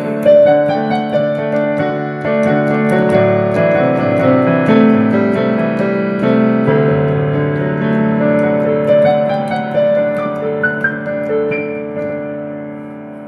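Keyboard playing the instrumental outro of a gospel song, sustained chords with single notes over them, fading out near the end.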